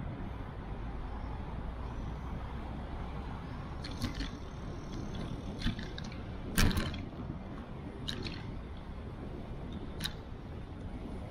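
Bicycle riding on an asphalt bike path: steady tyre and wind noise on a bike-mounted action camera, with a handful of sharp knocks and rattles as the bike goes over bumps. The loudest knock comes about six and a half seconds in, where the path crosses a kerbed crossing.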